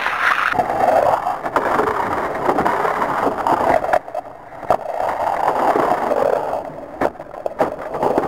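Hot Wheels Sizzlers toy cars running on plastic track: the whir of their small electric motors and the rattle of their wheels on the track, swelling and fading, with several sharp clicks and knocks.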